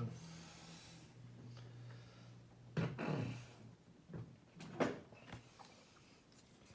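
Two sharp clunks, about three seconds in and again near five seconds, with a few lighter knocks: padlocks being handled and set down on a hard surface.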